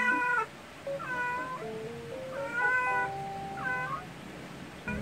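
Domestic cat meowing four times, short calls about a second apart, calling down to its kittens as if to wake them.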